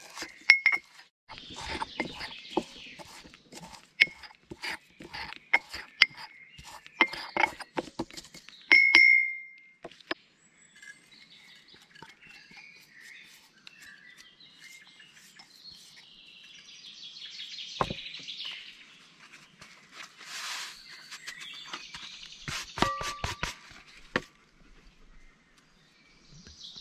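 Ceramic mortar and pestle pounding fresh herbs: rapid, irregular knocks and ringing clinks for about ten seconds. After that, birds chirp in the background, with a few scattered clinks of utensils and glass.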